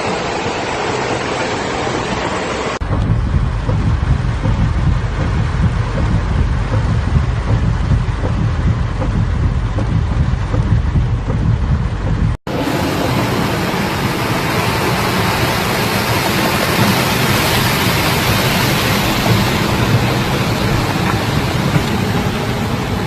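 Hurricane wind and driving rain: a loud, continuous rushing noise with heavy wind buffeting on the microphone. The sound changes abruptly twice, about three and about twelve seconds in, the last part hissier than the rest.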